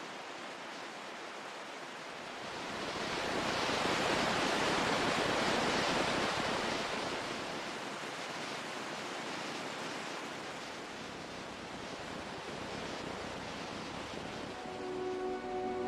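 Ocean surf: a wave rushes in, swelling to its loudest a few seconds in, then slowly washes back to a steady lower hiss.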